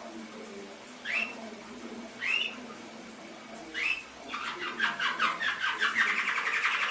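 Domestic canary singing: three short sliding notes about a second apart, then from about four seconds in a fast rolling trill of rapidly repeated notes.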